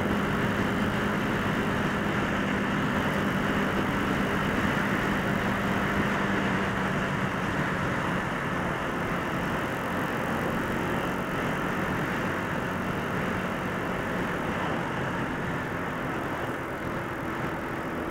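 Motorcycle engine running at a steady cruising speed on the move, mixed with wind rush and road noise on the rider's own microphone. It is a constant hum with a steady low engine tone that fades a little after about the first half.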